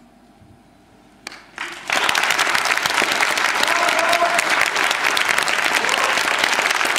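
Concert audience applauding: after a short hush as the last note dies away, a couple of early claps come in, and then about two seconds in the whole hall breaks into steady applause.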